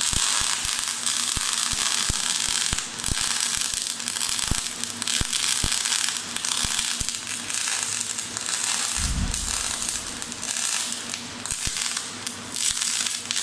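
MIG welding arc from a Power Mig 500 gas-shielded welder, struck at the start and held: a steady dense crackle and sizzle with frequent sharp pops. A low thump about nine seconds in.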